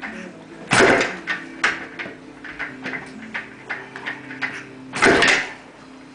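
Acoustic guitar music: held notes under irregular plucked and strummed strokes, with two loud strums, one about a second in and one about five seconds in.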